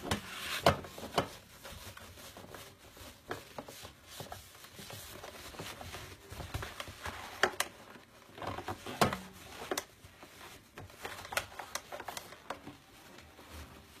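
A cloth rubbing and scrubbing over the plastic housing of a coffee maker, with irregular sharp knocks and clicks as the plastic parts are handled and bump against the sink.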